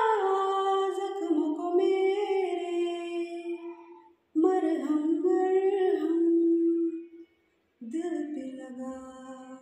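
A woman singing unaccompanied, holding long, gliding notes in three phrases, with short breaks about four and seven and a half seconds in.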